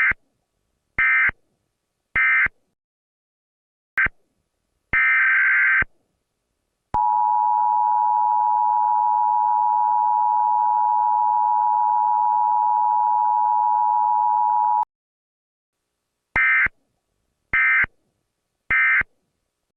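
Emergency Alert System signalling. It opens with three short buzzing digital data bursts about a second apart, the SAME end-of-message code closing the tornado warning, followed by two more data bursts. Next comes the EAS two-tone attention signal, a steady dual tone held for about eight seconds, and near the end three more short data bursts a second apart.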